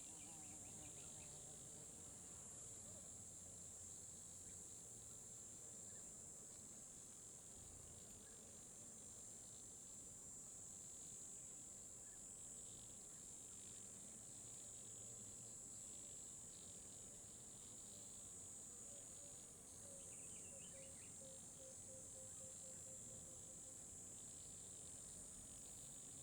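Near silence apart from faint crickets trilling steadily at a high pitch.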